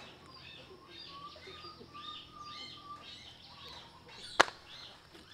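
Repeated short, high chirping calls with a brief steady whistled note among them, then a single sharp click about four seconds in.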